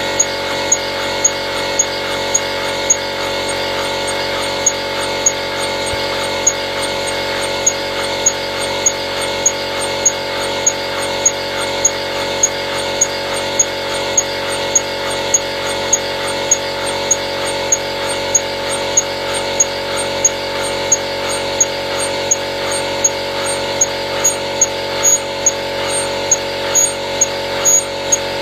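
Home-built single-cylinder, double-acting model steam engine running slowly on compressed air: a steady hiss with a held tone and a sharp regular beat about one and a half times a second. The beat quickens slightly near the end.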